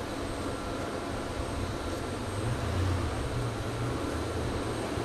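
Jet airliner engines running on an airport apron: a steady rumble with a faint high whine, the low hum swelling for a couple of seconds midway.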